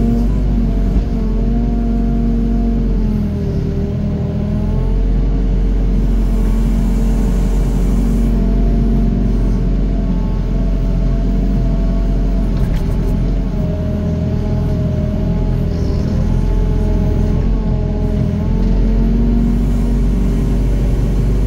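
Doosan DX55 mini excavator's diesel engine running steadily as it digs, its note sagging and recovering a few times.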